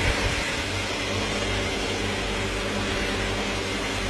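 Electric air blower feeding a coal-fired furnace, running steadily with an even rushing noise and a low mains hum.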